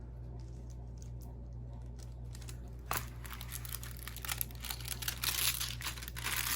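Plastic packaging of a diamond painting kit crinkling and rustling as the canvas is unwrapped, with a sharp click about three seconds in and the crinkling getting busier after that.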